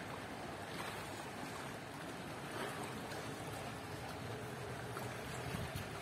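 Steady wash of wind and choppy sea water lapping against a stone seafront.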